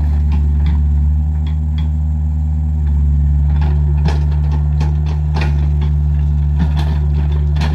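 Excavator's diesel engine running steadily under load, with scattered knocks and clanks of rock and steel as the bucket works stones on the road.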